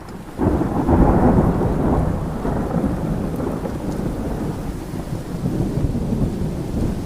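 Windstorm sound: a deep rumble swells up about half a second in, loudest for the next second or so, then settles into steady storm noise.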